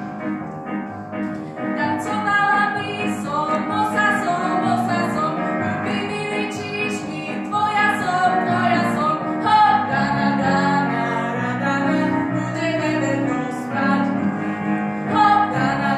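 A woman singing a song solo with musical accompaniment, her held notes wavering with vibrato.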